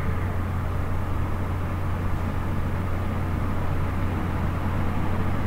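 Steady low hum with an even background hiss, unchanged throughout: the recording microphone's constant background noise, with no other sound over it.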